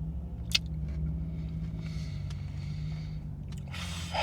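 Steady low hum of an idling car engine, with a single sharp click about half a second in and a short rushing noise near the end.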